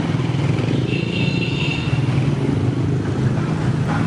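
Motor vehicle engine running steadily, a low drone with no change in pitch.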